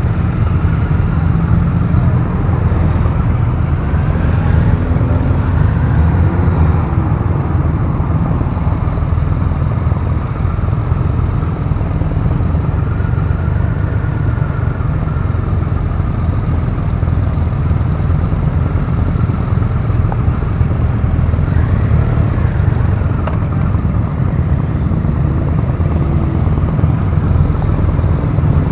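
Triumph Rocket III Classic's big three-cylinder engine running at low revs as the bike crawls along, a steady deep rumble, with other motorcycles' engines around it.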